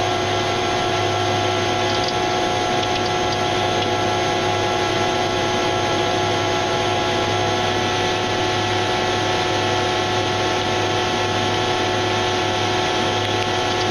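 Airliner engines droning steadily in the cockpit on final approach: a low hum with several steady tones over an even hiss.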